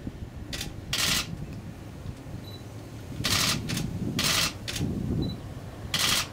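Camera shutter firing in about seven short bursts, four of them loud, over a low wind rumble.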